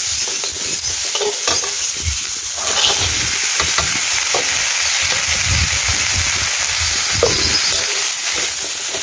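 Sliced onions sizzling in hot oil in a steel wok, stirred with a metal spatula that scrapes and knocks against the pan. A few seconds in, a bowl of mixed vegetables is tipped in and the sizzle gets louder.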